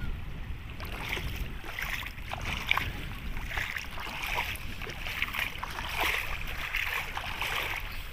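Small sea waves lapping and splashing at the shoreline in irregular washes, with wind rumbling on the microphone.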